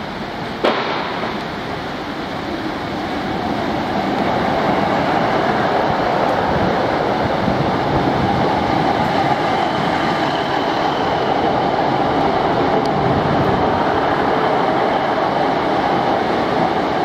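Class 153 diesel multiple unit moving along the platform close by, its underfloor diesel engine and wheels on the rails running as a steady drone that grows louder after a few seconds and then holds. A single sharp knock a little under a second in.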